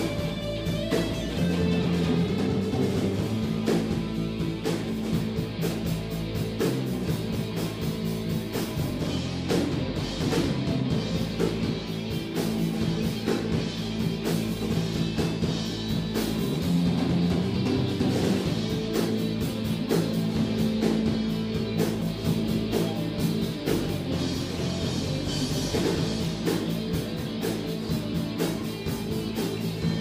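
Live rock band playing: two electric guitars, electric bass and drum kit, with a steady beat and sustained guitar chords.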